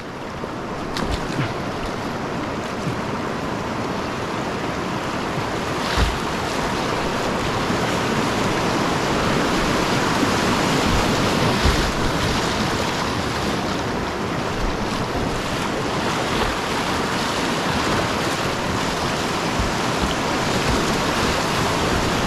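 Whitewater rapid rushing steadily, growing louder over the first several seconds, with a few brief low bumps of wind buffeting the microphone.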